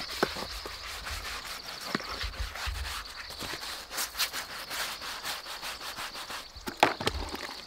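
A scrubbing sponge scouring a wet wooden perch with soapy water: quick rasping strokes one after another, with a sharp knock near the end.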